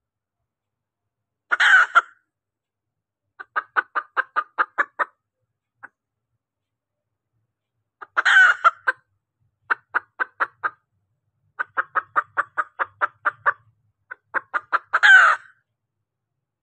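Junglefowl hen calling: runs of quick clucks, about six a second, broken by three loud squawks. It is a lure call that draws in cock birds.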